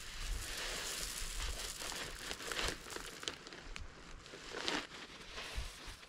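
Crinkling and rustling of a bag of stone being handled, with rustling steps in dry pine needles. There are a few sharp crackles, the loudest about four and a half seconds in.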